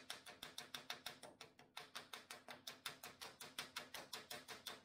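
A small hand tool scraping rusted sheet steel on a VW T2 bus's wheel-arch seam, in quick, regular, faint strokes, about seven a second. The rust is being taken down and cleaned back to sound metal.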